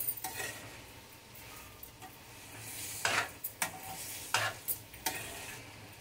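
Long steel spoon stirring and scraping grated bottle gourd halwa around a kadhai, several louder scrapes against the pan over a steady low sizzle from the gas-heated mixture. The gourd's water is mostly cooked off and sugar has just been stirred in.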